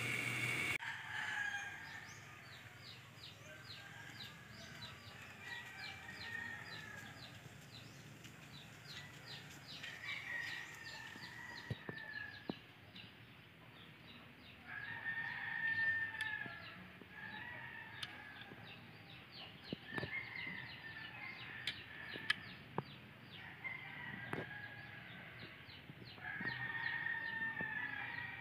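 Roosters crowing over and over, each crow lasting one to two seconds, with a few scattered sharp clicks in between. A louder sound cuts off a moment in.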